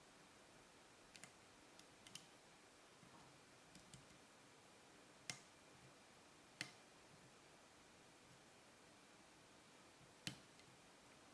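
Sparse faint clicks of a lock pick and tension tool working the serrated pin stacks of an American 5200-series five-pin padlock, with three sharper clicks about five, six and a half and ten seconds in.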